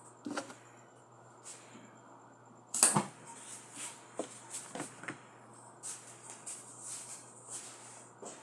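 Scattered knocks and clicks of objects being handled, the loudest a sharp knock about three seconds in, followed by a run of lighter taps.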